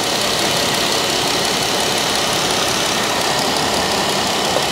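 2014 Jeep Wrangler's 3.6-litre Pentastar V6 idling steadily with the hood open, left running after a thermostat replacement to warm up and purge air from the refilled cooling system.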